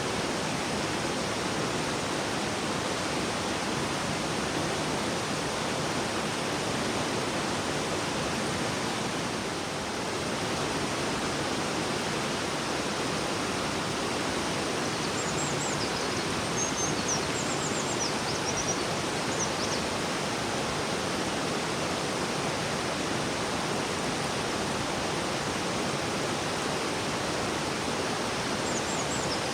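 River water rushing and babbling in a steady, even wash of noise. Brief high chirps sound over it about halfway through and again near the end.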